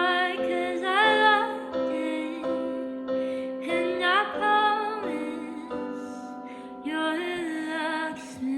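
A woman singing a slow melody over a digital piano accompaniment, her held notes sliding up and down in pitch.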